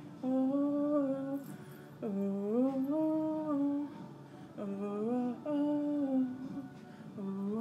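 A woman singing wordless held notes, three phrases of one to two seconds each with short breaths between, the pitch sliding up and down within each, and a fourth phrase beginning near the end.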